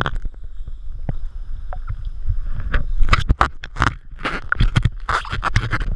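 Water splashing and sloshing at the surface right against the camera housing, over a low rumble of wind and handling. It is fairly calm with a few small splashes at first, then from about three seconds in comes a quick run of louder splashes.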